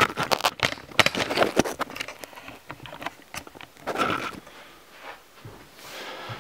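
Handling noise from the recording camera or phone as it is moved and set down: a quick run of clicks and knocks over the first two seconds, then a brief rustle about four seconds in.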